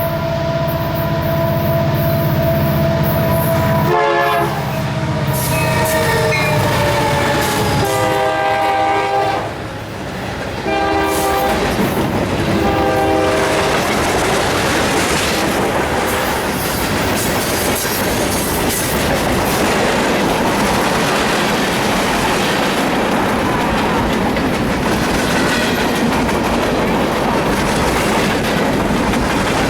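Union Pacific train's locomotive sounding its chord horn in about four blasts over the first dozen seconds. Then the train rolls past with a steady rumble and clickety-clack of wheels on the rails.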